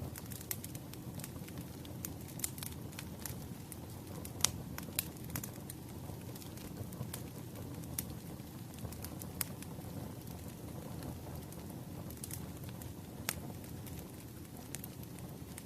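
Wood fire burning steadily with a low rumble, and irregular sharp crackles and pops from the burning firewood.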